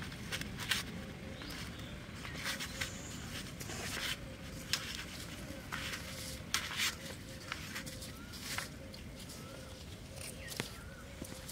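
Hands kneading and pressing bait dough in a steel plate: irregular soft scrapes and clicks.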